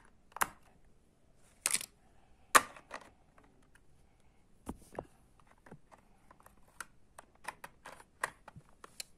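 Irregular sharp clicks and taps of small hard parts being handled and fitted together, a few louder clicks in the first three seconds, then quicker, lighter clicks through the second half.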